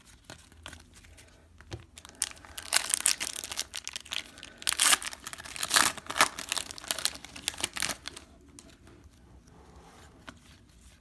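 Foil wrapper of a hockey card pack being torn and crinkled in the hands, a dense crackling from about two seconds in that stops a few seconds before the end.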